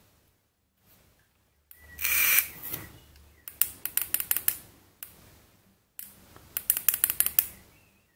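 Fire button of a Wismec Reuleaux RX2/3 box mod clicked rapidly in two quick runs, about two seconds apart: the repeated presses that switch the mod on and off. Before them, about two seconds in, a brief rustle of the device being handled.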